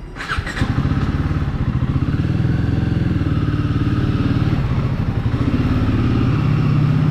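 Royal Enfield Guerrilla 450's single-cylinder engine starting with a brief clatter about half a second in, then running steadily.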